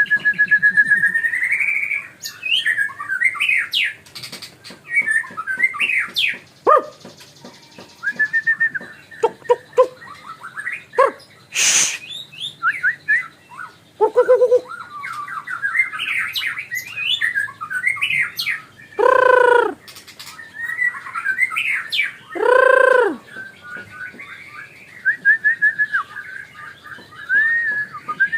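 White-rumped shama (murai batu) singing a long, varied song of clear whistles, fast trills and chattering phrases. Two loud, drawn-out arched calls come about two-thirds of the way through.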